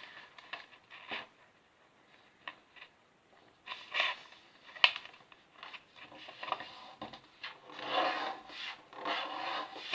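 Sheet of paper being folded and creased by hand: short crackles and longer rubbing swishes as the folds are pressed flat.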